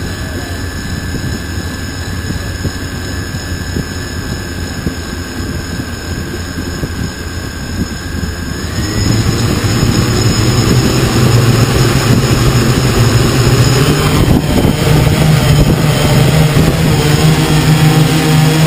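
Drone motors and propellers running in a steady hover with a constant whine; about nine seconds in, the whine steps up in pitch and the sound grows louder as the motors speed up.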